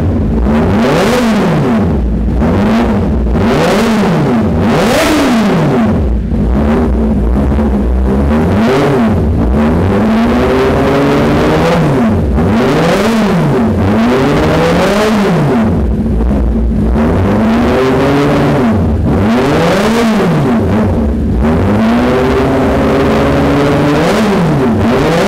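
Kawasaki ZX-10R's inline-four engine revved again and again through an Austin Racing aftermarket exhaust, the pitch climbing and dropping back with each throttle blip, about one blip every one to two seconds.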